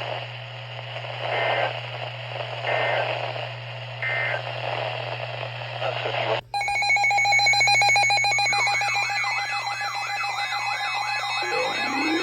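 Emergency alert broadcast audio: hissy weather-radio sound with a few short beeps, cut off abruptly about six seconds in by layered electronic alarm tones. A steady chord of tones with fast pulsing is joined by a siren-like tone sweeping up and down two or three times a second, with a rising glide near the end.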